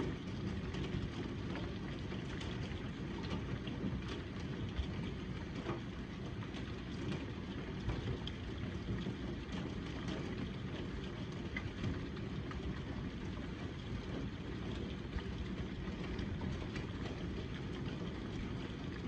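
Quarter-size hail falling with rain: a steady wash of noise with scattered sharp ticks of hailstones striking.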